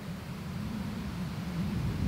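Low rumble of an approaching Hunslet Austerity 0-6-0 saddle tank steam locomotive, growing steadily louder.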